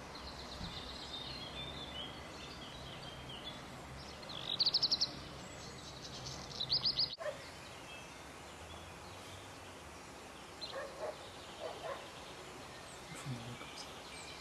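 Black redstart singing: two loud, fast rattling series of high notes about two seconds apart, over faint high twittering.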